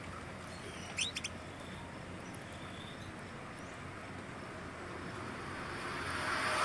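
Canaries at the nest: a quick cluster of high chirps, one of them sweeping upward, about a second in, over a steady background hiss. Near the end a broad rushing noise swells up and grows louder.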